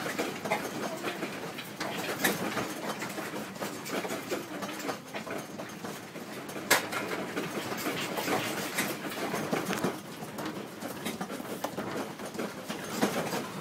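Office furniture and loose objects rattling and clattering steadily as the building shakes in a strong earthquake, with a sharp knock about halfway through.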